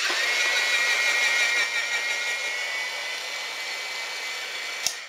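Presto Salad Shooter's electric motor running with a steady high whine as a carrot is pushed through its slicing cone. It starts suddenly, is louder for the first two and a half seconds and then a little quieter, and stops with a click near the end.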